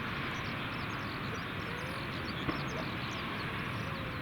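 Wind buffeting the microphone over a steady distant rumble, with many small birds chirping throughout.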